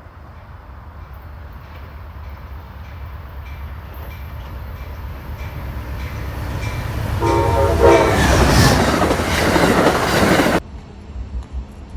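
Approaching train: a rumble growing steadily louder with regular clicks of wheels over rail joints, then the locomotive's horn sounds about seven seconds in as the train draws level and goes by with a loud rush of noise that cuts off suddenly near the end.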